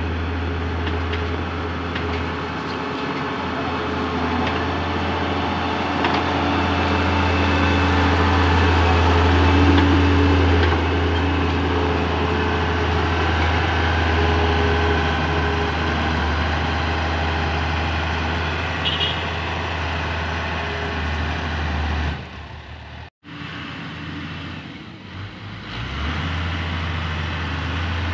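Komatsu GD405A motor grader's diesel engine running steadily as the machine spreads gravel aggregate, a constant low drone that grows louder about eight to ten seconds in. The sound drops away abruptly about two-thirds of the way through and comes back a few seconds later.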